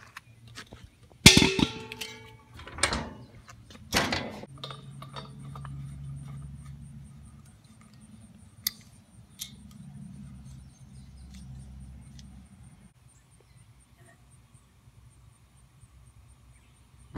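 Metal clanks and knocks from a propane tank and its regulator being handled: a loud clang with a short ring about a second in, two more knocks over the next few seconds, then a low rumble and a couple of small clicks.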